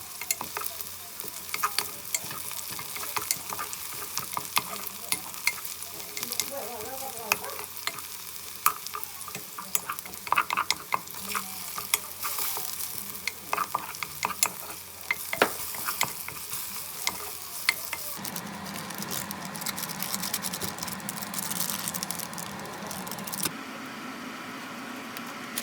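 Cooking sounds: food sizzling in a pan with many scattered sharp clicks, as of a utensil stirring against it. The sizzle changes character about eighteen seconds in.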